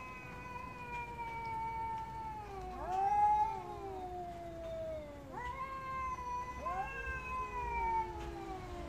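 Two cats caterwauling at each other in long, drawn-out yowls that slowly sink in pitch, one starting up before the other has finished.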